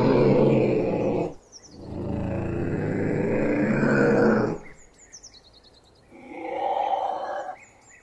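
Ocelot giving long, drawn-out meowing calls: three in all, the last shorter and higher-pitched. In the gaps between the calls, a bird gives short, quick series of high chirps that fall in pitch.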